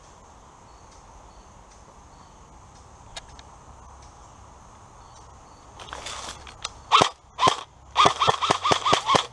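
AR-style airsoft rifle firing: two single shots about half a second apart, then a quick string of about six shots in just over a second.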